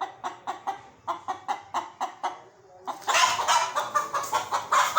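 Chicken clucking in a quick, even series of about four clucks a second. About three seconds in, a louder, denser rush of sound takes over.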